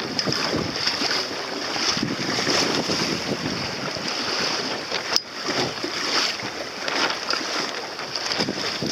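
Wind buffeting the microphone over water rushing and slapping against the hull of a small sailing dinghy under way, with a single sharp click about five seconds in.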